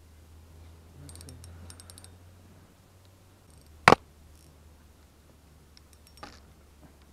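Spinning rod and reel being handled: a run of small clicks, then one sharp, loud click about four seconds in and a softer click near the end.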